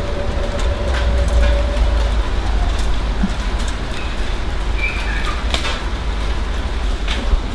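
Hail falling outside an open balcony door: a steady noise of hailstones striking, with many scattered sharp ticks, over a deep continuous rumble.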